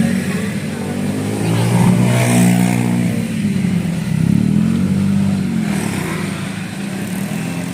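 A road vehicle's engine revving up and down several times, its pitch rising and falling, loudest about two seconds in.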